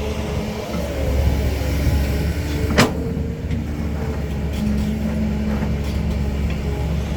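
Diesel engine of a Caterpillar 320 hydraulic excavator running steadily under work, with one sharp knock a little under three seconds in. A steady higher hum joins past the middle.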